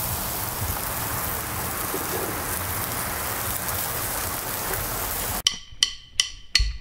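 Pork skewers sizzling over a charcoal grill, a steady hiss. About five seconds in it cuts off suddenly and a few sharp electronic ticks follow.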